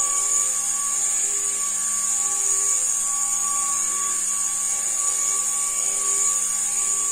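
Spinner ball mini drone's small motors and propellers running steadily in flight, a high-pitched whine with a lower hum beneath it.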